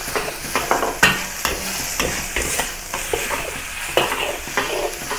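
Chopped onion, ginger and garlic sizzling in hot oil in a wok while a metal wok spatula stirs them, scraping and knocking against the pan a few times a second.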